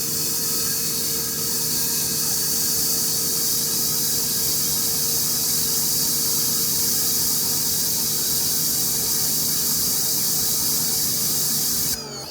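EGO HPW3200 cordless pressure washer running on turbo through a 40-degree nozzle: a steady loud hiss of water spray over the steady hum of the motor and pump. Near the end it cuts off and the motor's pitch falls away as it winds down.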